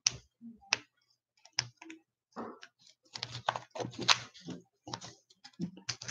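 Irregular small clicks and clatters of hands working at a desk, a few at first, then coming thick and fast from about halfway through.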